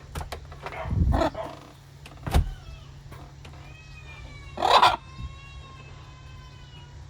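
A pet parrot giving several harsh squawks, the loudest a little before the five-second mark, with a single sharp knock about two and a half seconds in.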